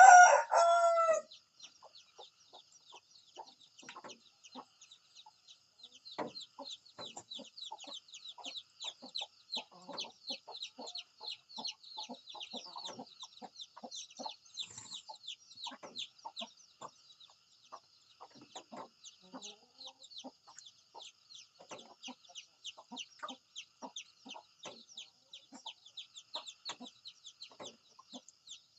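A rooster's crow ending loudly just over a second in, followed by scattered short clucks and clicks, with rapid high chirping running steadily behind.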